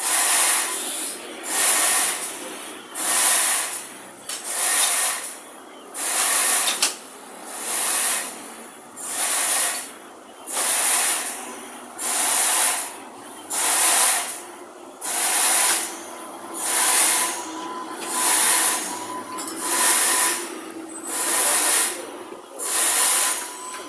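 Sawmill saw cutting through a large teak log: a loud hissing rush that swells and fades about once a second, with a faint steady whine coming in about halfway through.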